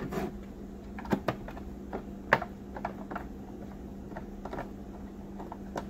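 Irregular light clicks and taps of a Phillips screwdriver and screw against a hard plastic battery case as a screw is fitted and driven in from underneath.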